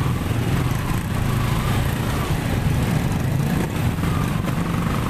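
Motorcycle engine running steadily while riding, over a steady hiss of tyres on a wet road.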